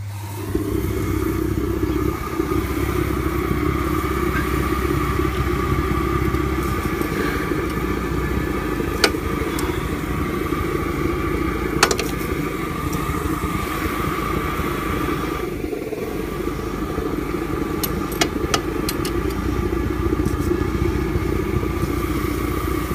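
Steam engine of a 1/8 scale live-steam Shay locomotive starting up on steam as the throttle opens, then running steadily and fast with a rapid exhaust beat. It briefly drops off near the middle, and a few sharp clicks sound.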